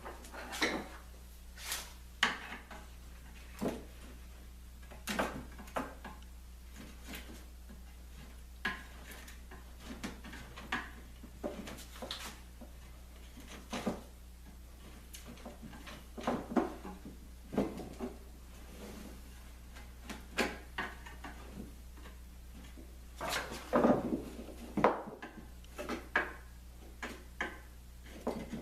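Glue squeeze-out being cleaned off a laminated plywood table ring: irregular scraping strokes and sharp taps and knocks of a tool on the wood, coming in clusters, busiest in the second half.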